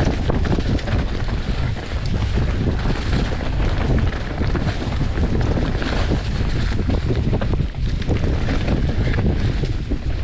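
Wind buffeting a chest-mounted GoPro's microphone over the steady rumble of full-suspension mountain bike tyres on a loose dirt trail at speed, with frequent small knocks and rattles from the bike.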